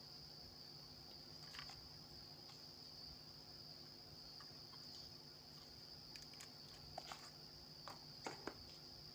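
Near silence: a faint steady high-pitched whine with a few light scattered clicks, mostly in the second half.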